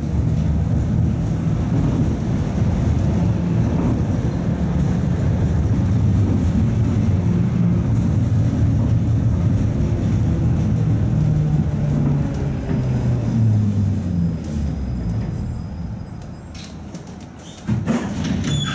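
71-619A tram running along the track, heard from inside the passenger cabin: steady running noise with a low motor hum that falls in pitch as the tram brakes. It goes quieter as it comes to a stop about 17 seconds in, then a sudden clatter starts just before the end.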